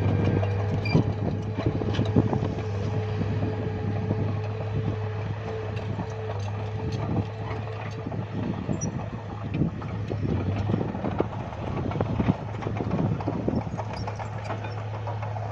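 Bulldozer's diesel engine running steadily, with many irregular knocks and clanks of its steel tracks and blade working the ground.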